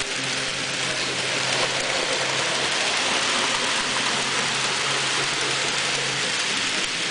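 Model railroad train of empty ore cars rolling past close by: a steady rushing rattle of many small metal wheels on the track, with a low steady hum that stops about six seconds in.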